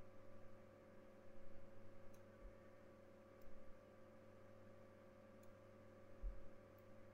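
Near silence: a faint, steady electrical hum, with a few faint clicks and soft low thumps scattered through it.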